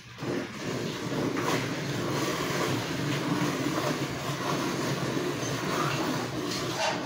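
Cow being hand-milked: alternating streams of milk squirting from the teats into a steel bucket full of froth, making a steady, even noise.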